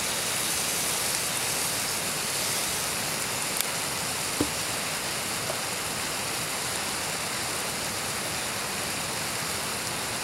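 Steady hissing noise, with a single light knock about four and a half seconds in as a seasoning shaker is set down on the wooden table.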